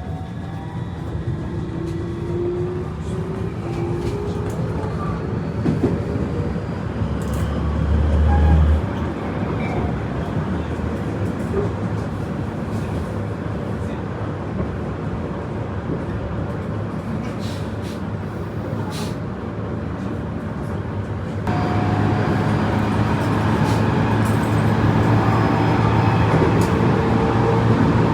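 Tobu 30000 series electric train running at speed, heard from inside the car: steady wheel and rail noise with the whine of its Hitachi IGBT inverter and traction motors, and a short low thump about eight seconds in. About two-thirds of the way through, the running noise suddenly steps up louder and steady motor tones come in.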